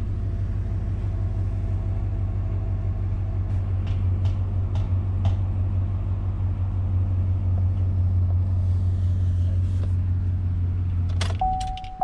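Chevrolet Silverado pickup engine idling steadily, heard from inside the cab, with a few light clicks a few seconds in. Near the end there are clicks and a dashboard warning chime sounds, and the engine's hum stops.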